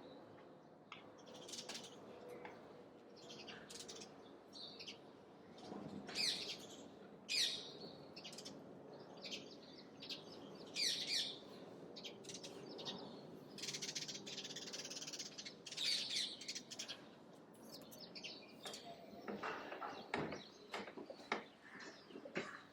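Small birds chirping, many short high calls in irregular succession, some louder than others, over a faint steady background.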